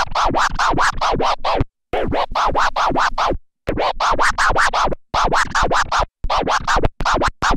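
Vinyl scratching on a skip-proof practice record on a Technics turntable, played through a DJ mixer. A sample is dragged back and forth in quick strokes, about four or five a second, with the sound cut in and out sharply between them.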